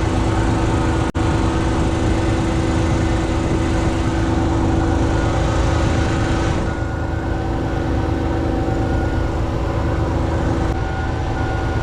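Crane's diesel power unit (the primary aggregate) running steadily with a hydraulic whine while its rams lift. There is a momentary dropout about a second in, and the high hiss falls away about halfway through.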